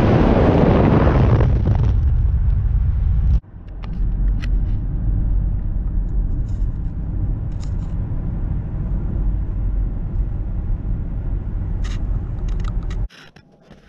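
Toyota Crown Athlete hybrid cruising at speed. For the first few seconds a loud rush of wind and road noise is heard. A sudden cut then gives way to a steady, lower cabin rumble of tyres on the road, which drops away abruptly near the end.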